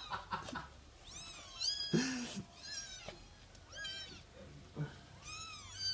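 Several young kittens mewing over and over, short high-pitched cries that rise and fall, often overlapping. A lower, louder sound comes about two seconds in.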